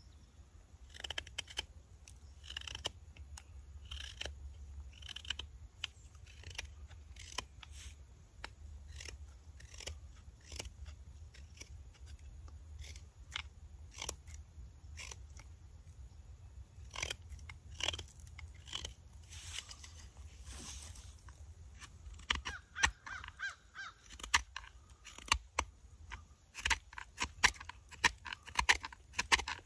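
Carving knife shaving and cutting walnut wood in short, irregular strokes, with a low steady rumble underneath. The strokes come quicker and sharper in the last several seconds.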